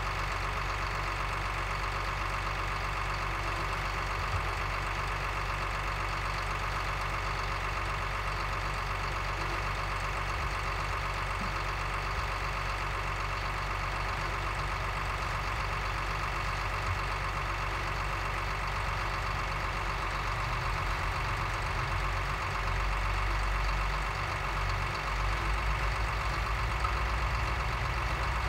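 Cat 953D track loader's diesel engine idling steadily. A deeper low rumble joins in and grows over the last several seconds.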